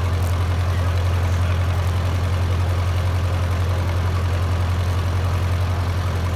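Small antique tractor's engine running steadily as the tractor drives along, a constant low note with an even, fast pulse.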